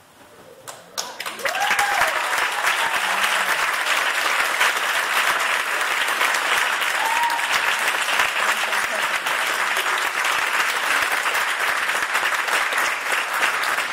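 Audience applause, many people clapping, starting about a second in and holding steady.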